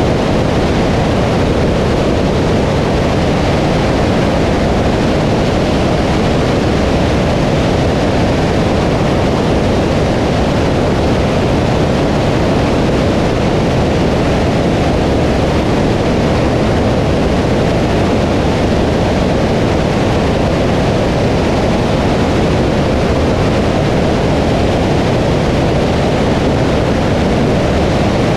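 Steady rushing roar of airflow and engine drone from a single-engine light aircraft in cruise flight, picked up by a camera mounted on the outside of the airframe. It does not change.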